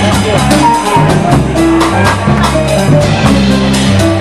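Live jazz quartet playing at a brisk tempo: drum kit with steady cymbal strokes over a moving bass line and piano, with the trumpet up near the end.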